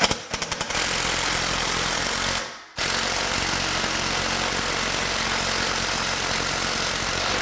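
Electric drill boring a 7/8-inch hole into wood: a few short bursts on the trigger, then a steady run under load, a brief stop about two and a half seconds in, and a second run.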